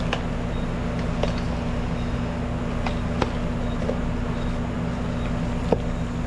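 A steady low machine hum holding several even tones, with a few light clicks and knocks scattered through.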